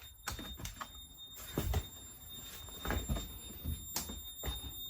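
Fire alarm control panel's piezo buzzer sounding a faint steady high-pitched tone while the panel is in pre-discharge. Scattered knocks and rustles of handling, loudest about a second and a half in and again about three seconds in, sound over it.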